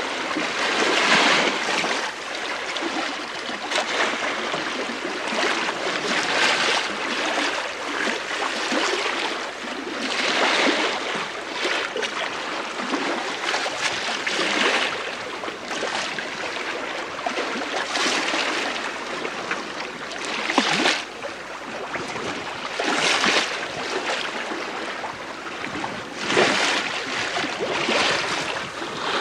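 Bow wave of the three-masted sail training schooner STS Malcolm Miller under way in light wind, heard from the lee quarter: a continuous wash of water along the hull that swells and eases every few seconds.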